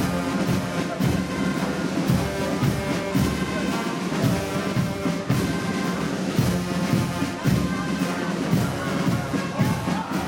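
Marching band playing live: brass with a sousaphone over marching drums, the bass drum keeping a steady beat.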